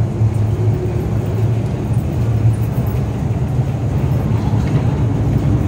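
MTR M-train electric metro train running along the station platform: a steady, loud low rumble of wheels and traction equipment.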